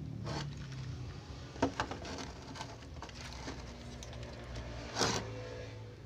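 Handling noises from a toy RC bulldozer: a few short plastic clicks and knocks, the loudest about five seconds in, over a faint steady low hum.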